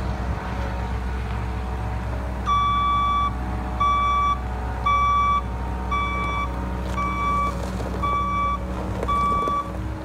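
2013 Volvo MC95C skid steer reversing: its backup alarm beeps seven times, about once a second, starting a couple of seconds in, over the steady running of its diesel engine.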